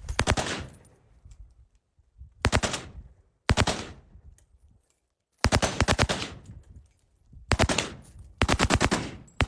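Rifle firing on full auto in about six short bursts, each a quick rattle of shots, with gaps of one to two seconds between bursts.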